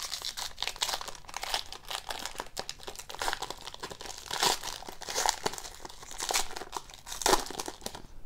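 Foil wrapper of a 2014-15 Upper Deck Premier hockey card pack crinkling and tearing as it is torn open and peeled back by hand, with several louder crackles.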